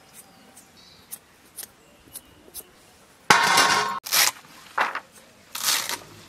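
Faint snaps of leaves being plucked, then about three seconds in a loud metallic clatter from a stainless steel bowl. A few sharp chops of a hand blade through bunched greens follow.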